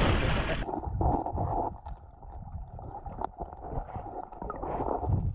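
Water splashing around an overturned, swamped canoe, then about half a second in the sound turns abruptly muffled as the microphone goes under water, leaving dull water sounds and scattered small knocks.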